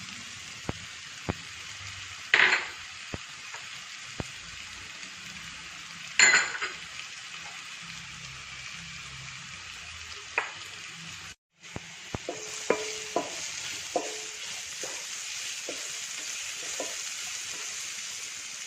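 Onion, tomato and spice-powder masala frying in hot coconut oil in a pan, sizzling steadily as it is stirred. Two louder bursts come about 2.5 and 6 seconds in, and in the second half a spoon knocks and scrapes against the pan about once a second.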